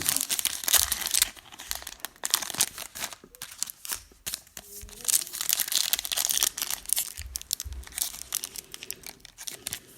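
Trading-card pack wrappers crinkling and tearing in quick, irregular rustles as the packs are opened by hand; they are hard to get open.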